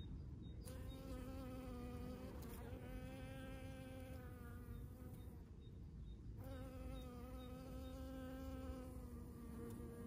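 Honey bee buzzing on the wing, a steady wingbeat hum. It starts under a second in, breaks off for about a second midway, then resumes.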